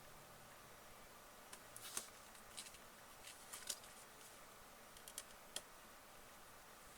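Scattered light clicks and taps of small hard parts being handled, about a dozen between one and a half and five and a half seconds in, over near silence.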